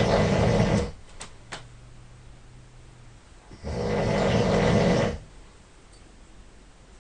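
A person snoring loudly in sleep. One snore ends within the first second, and a second snore starts a little past halfway and lasts about a second and a half.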